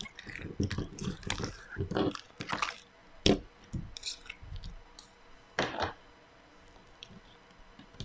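Thick white slime being squeezed out of its plastic cup and pressed and stretched by hand: wet, sticky squelches and crackles in irregular bursts.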